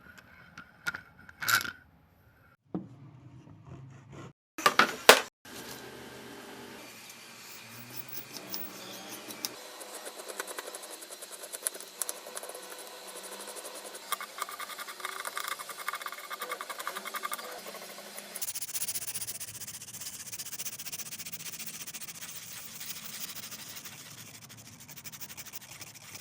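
Hand tools working wood: a few sharp knocks, then continuous scraping and rubbing of a tool over the wood in fine rapid strokes.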